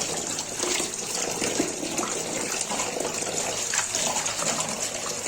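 Tap water running steadily over guava leaves as they are rinsed.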